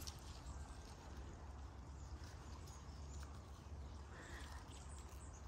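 Faint outdoor background: a low steady rumble with scattered light ticks, and a brief faint higher sound about four seconds in.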